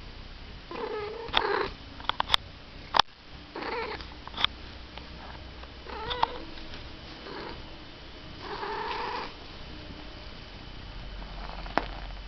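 Domestic cat making four short, odd calls that bend in pitch, over a steady low purr, with a few sharp clicks in between.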